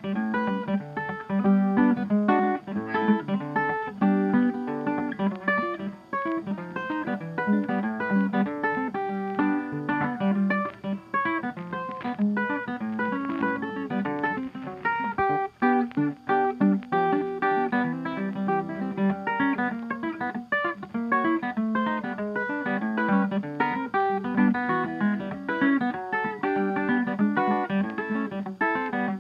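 Background music: acoustic guitar playing quick plucked notes in a steady rhythm.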